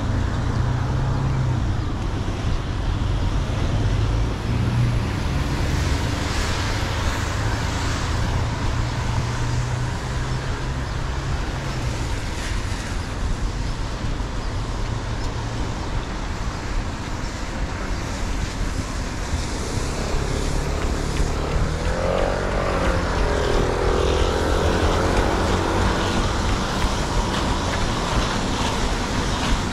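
Road traffic passing, over a steady low rumble. About twenty seconds in, a passing vehicle's engine note rises and falls for several seconds.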